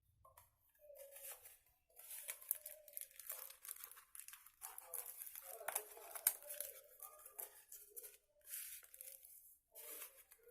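Irregular tearing and crinkling, with small sharp clicks, coming in uneven spells.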